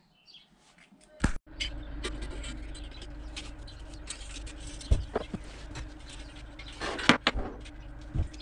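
Rustling, small clicks and a few sharp knocks from handling a flexible stainless-steel exhaust pipe as it is fitted to a diesel heater's exhaust outlet, over a steady low hum.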